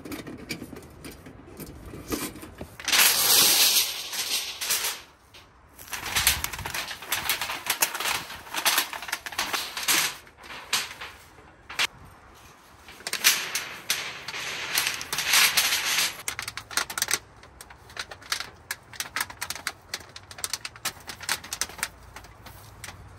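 Thin titanium sheet crinkling, rattling and clicking in repeated bursts as a new titanium stovepipe is rolled up into a tube for the first time. The loudest burst comes a few seconds in.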